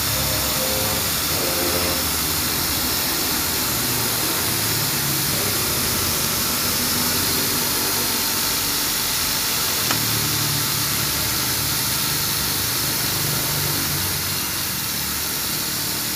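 A machine running steadily: a constant hiss with a low hum that swells and fades, and one sharp click about ten seconds in.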